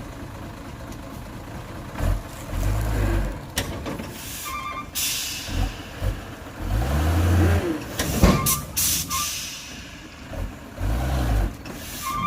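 Heavy diesel earthmoving machinery at work: a steady engine rumble with three heavy surges of power. It is broken by a few sharp knocks, short beeping pips and bursts of hiss.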